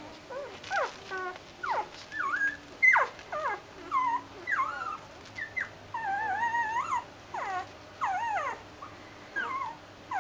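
A litter of young Doberman puppies whining, with short high calls that slide up and down in pitch, one or two a second, some overlapping.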